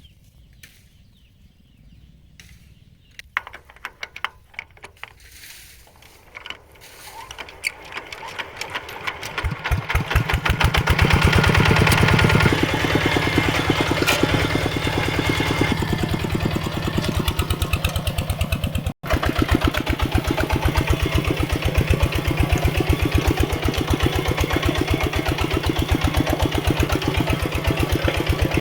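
Mini tractor engine running with a fast, even pulse, faint at first and growing loud over the first ten seconds or so, then steady. The sound cuts out for an instant about two-thirds of the way through.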